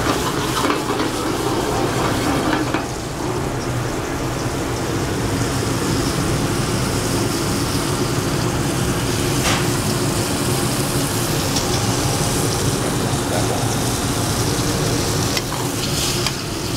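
Floured chicken breasts frying in canola oil and butter in a hot sauté pan, a steady sizzle over a steady low hum. A short click about halfway through.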